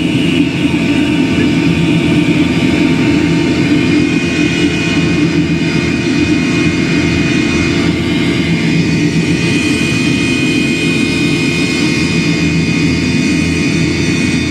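Airliner jet engines running steadily: an even, loud drone with a faint high whine above it, unchanging throughout.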